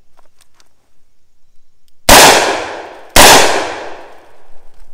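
Two quick double-action shots from a 2½-inch Smith & Wesson Combat Magnum (Model 19) .357 Magnum revolver, about a second apart, each very loud and followed by a fading echo.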